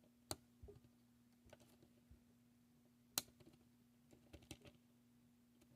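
Near silence with faint clicks and light taps of small metal motor parts being handled during reassembly, two sharper clicks about a third of a second in and about three seconds in, over a faint steady low hum.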